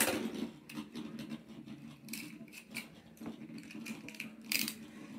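A Beyblade spinning top whirring steadily on the floor of a stadium bowl, with a few sharp clicks and taps scattered through.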